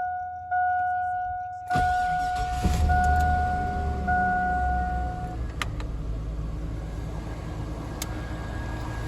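2007 Chevy Malibu Maxx cold start after sitting more than a week. The dashboard warning chime dings every second or so while the engine cranks and fires a little under two seconds in. The engine runs up briefly, then settles into a steady idle as the chime stops, about five seconds in.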